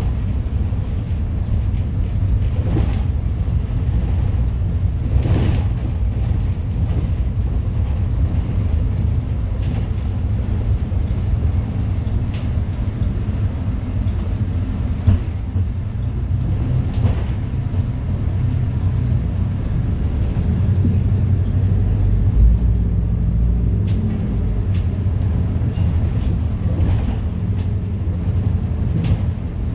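City bus driving, heard from inside: a steady low engine and road rumble with scattered short rattles and knocks from the body and fittings.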